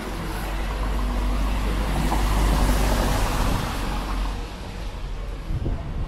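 A motor vehicle passing on a wet street, its engine rumble and tyre hiss building to a peak about two and a half seconds in and then fading away.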